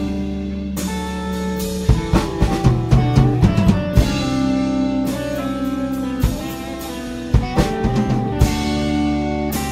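Live rock jam by a small band: a drum kit played with snare and bass drum hits under held guitar and bass guitar notes, the drum hits thinning out for a few seconds in the middle.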